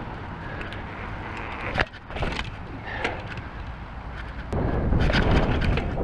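Mountain bike riding over brick pavers and grass: wind buffeting the microphone over the rumble of the tyres, with scattered clicks and rattles from the bike. The wind noise grows louder about four and a half seconds in.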